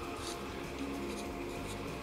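Soft background music, with faint scratchy rustling of a wet paper towel being pressed and smoothed by hand onto a guitar neck's dovetail heel.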